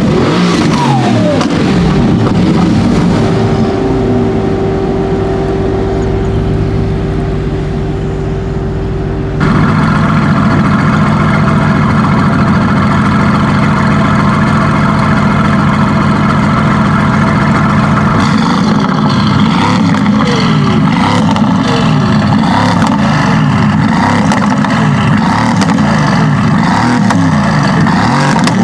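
Twin-turbo V8 of a 760 hp PP-Performance-tuned Mercedes-AMG GT S, with aftermarket downpipes and turbos. Its revs fall in the first few seconds, hold steady through a long middle stretch that changes abruptly about nine seconds in, then rise and fall again and again near the end.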